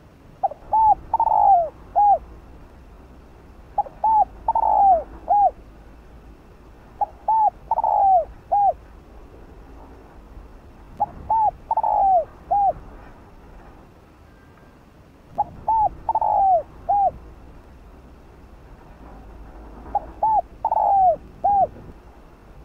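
Spotted dove cooing in six phrases, about one every four seconds. Each phrase is two short coos, a longer falling coo, then a short final coo.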